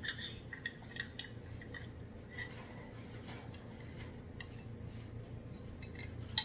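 Ice cubes clinking against a glass mason jar of iced tea as it is held and sipped through a straw: scattered light clinks, with a sharper clink near the end.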